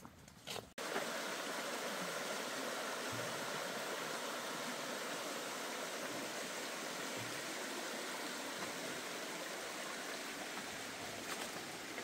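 Steady rush of flowing water, which cuts in abruptly about a second in.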